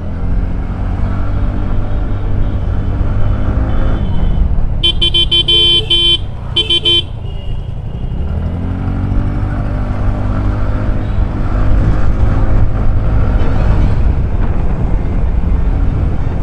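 TVS Ntorq 125 scooter's single-cylinder engine running under way, rising in pitch as it accelerates once early and again from about eight seconds in. A vehicle horn honks twice, a longer blast about five seconds in and a short one a second later.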